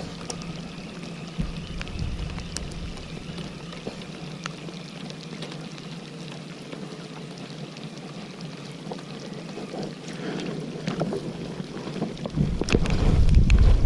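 Wind buffeting the microphone over a faint steady low hum and a few light clicks, the wind rumble growing much louder near the end.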